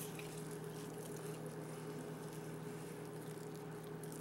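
A long knife sawing through a rare reverse-seared eye of round roast, with faint wet squishing and scraping, over a steady low electrical hum.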